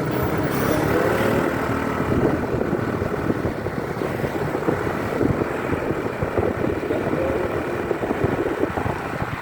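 Tour bus on the move: steady engine and road noise.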